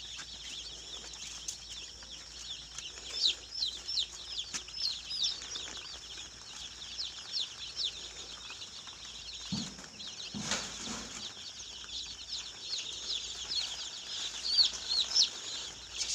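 Many chicks peeping at once: a continuous chorus of short, high, overlapping peeps, with a brief rustle about ten seconds in.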